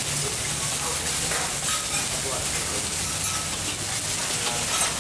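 Eggs sizzling in hot oil in a large black wok, steady throughout, with a metal spatula scraping and stirring against the pan now and then. A steady low hum runs underneath.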